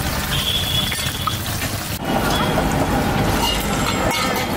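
Puris deep-frying in a large iron kadai of hot oil, a steady sizzle. About two seconds in the sound changes abruptly, with more low rumble and faint street noise.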